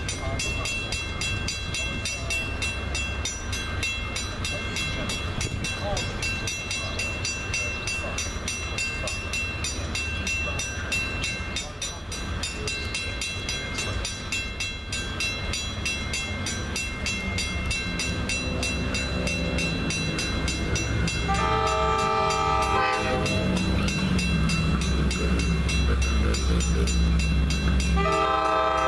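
Long Island Rail Road DE30AC diesel-electric locomotive approaching, its engine rumbling and growing louder as it nears. Its air horn sounds a chord about 21 seconds in, for a second and a half, and again just before the end.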